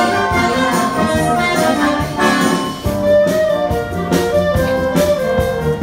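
A school wind band playing live, saxophones and brass sounding together in held and moving notes, with percussion hits in the last few seconds.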